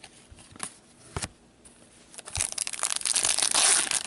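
A couple of light clicks, then, from about two seconds in, a trading card pack's wrapper being torn open and crinkled.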